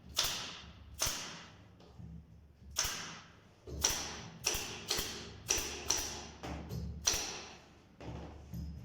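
Sharp knocks on wood, about a dozen strikes at uneven intervals, each dying away quickly, as in hammering during cage woodwork.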